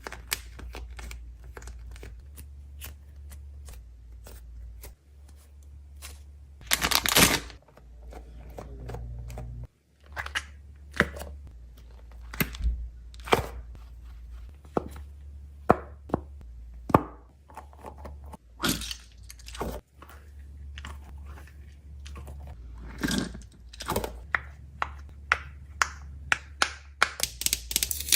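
Fidget toys being handled: an irregular run of sharp clicks, cracks and crunchy crackles, a few of them longer and louder, over a steady low hum.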